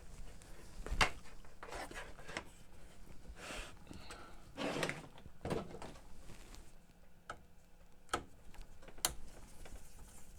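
Scattered clicks, knocks and brief rubbing from hands working on a cassette deck as it is unplugged and readied for disassembly, about half a dozen sharp knocks spread through.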